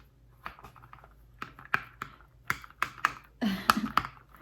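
Plastic packaging and unboxed items being handled: irregular crinkles and clicks, getting busier and louder in the second half.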